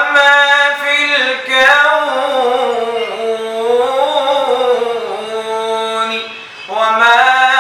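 A man singing an unaccompanied Islamic nasheed, one long line with held notes and wavering ornaments, without instruments. The voice drops away for a breath about six and a half seconds in, then starts a new phrase.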